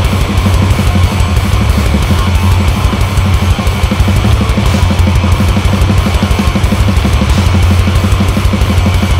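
Heavy metal mix: fast, steady drumming under a chainsaw-style, heavily distorted electric guitar, the guitar run through the Otto Audio Blown Out Wall distortion plugin.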